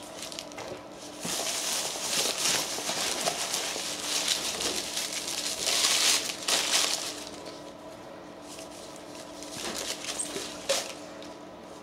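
Tissue paper and packing material crinkling and rustling as a packed tool is unwrapped from a cardboard box, loudest around the middle, with a light click near the end.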